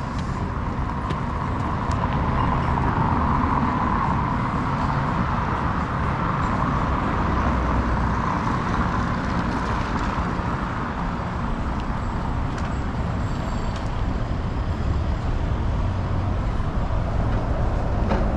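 Steady city street ambience: road traffic rumbling continuously, swelling for a few seconds in the first half as a vehicle passes.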